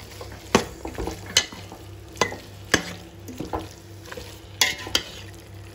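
A spoon stirring and sautéing mint leaves in frying prawn masala, knocking against the pan about six times at uneven intervals over a light sizzle.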